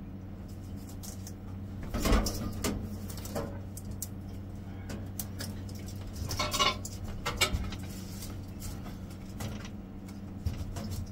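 A metal microwave trim frame being handled and set down: irregular clatters, knocks and light rattles, loudest about two seconds in and again around six to seven seconds in, over a steady low hum.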